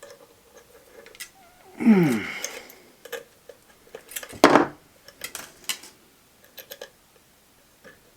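Scattered metallic clicks and taps from the bent-wire parts of a homemade jaw jacker as its trigger is handled and set, with a sharp snap about four and a half seconds in and a short falling-pitch sound about two seconds in.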